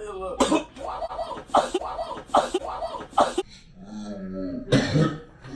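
A man's staged coughing fit, part of a fake coughing-up-blood prank: a quick run of about eight hacking coughs roughly every half second, a low groan, then one more strong cough near the end.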